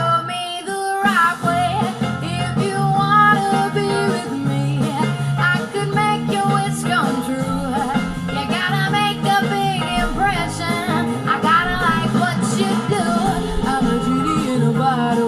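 Pop music with singing played through an 808 CANZ XL portable Bluetooth speaker.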